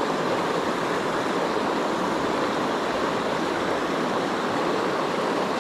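Small mountain stream running over shallow currents and little chutes: a steady, even rush of water.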